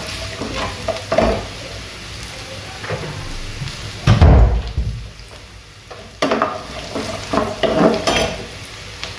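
Cashews and raisins sizzling in hot oil in a nonstick frying pan while a steel spatula stirs and scrapes them. About four seconds in there is a loud knock as the spatula is set down in the pan, then the stirring starts again about two seconds later.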